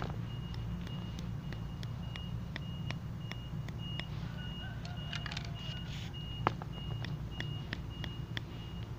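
Vehicle reversing alarm beeping in a steady string of short high beeps over a low engine rumble. Light clicks and taps, with one sharper click near the end, come from a palette knife working over the spray-painted card.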